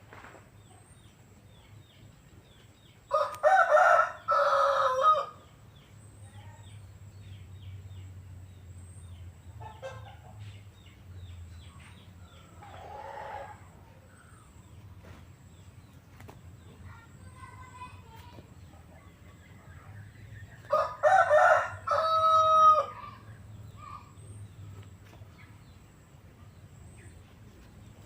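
A rooster crowing twice, each crow about two seconds long, the second coming some eighteen seconds after the first.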